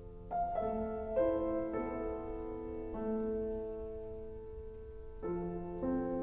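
Slow piano music: single notes and chords struck one after another and left to ring, with new chords a little after five seconds in.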